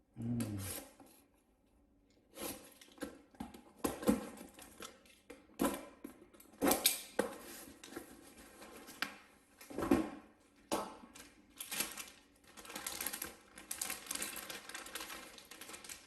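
Irregular clicks, taps and knocks of small laptop parts being handled and set down, with rustling and crinkling in between.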